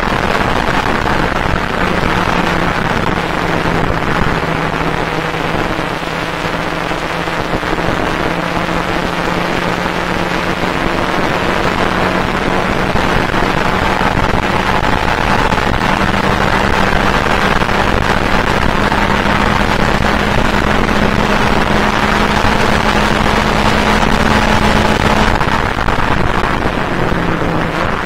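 Fun Cup race car's engine heard from inside the cockpit at speed, its pitch climbing slowly over a long stretch, then falling away near the end, over steady road and wind noise.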